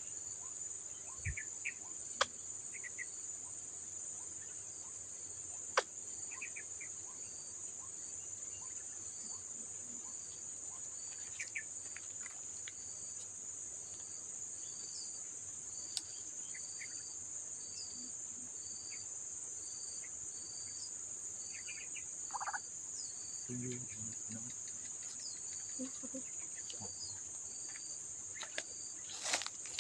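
Outdoor insect chorus: a steady high-pitched drone of crickets or cicadas, with a regular train of short high chirps a little over one a second and occasional brief bird calls.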